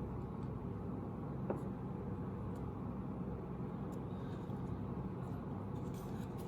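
Steady low background rumble, with a faint click about one and a half seconds in.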